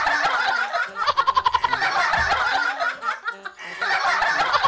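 A group of young people laughing and giggling together, with bursts of rapid laughter about a second in and again near the end.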